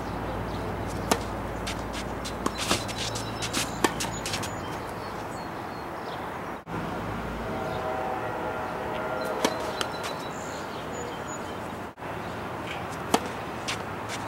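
Tennis ball struck by racquets and bouncing on a hard court: sharp single pops, a cluster in the first few seconds and a few more near the end, over steady wind rumble on the microphone.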